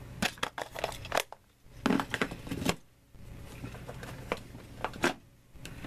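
Clear plastic compartment box holding tip-up lights being handled: two quick runs of plastic clicks and clatters, then a few lighter ticks and one sharp knock near the end.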